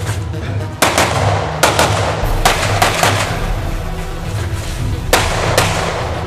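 Rapid handgun shots fired in quick pairs, about ten in all, with a gap of about two seconds near the middle before the last pair.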